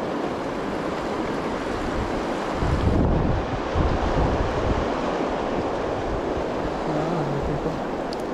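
Fast river water rushing over rocks, with wind buffeting the microphone, strongest in gusts from about two and a half to five seconds in.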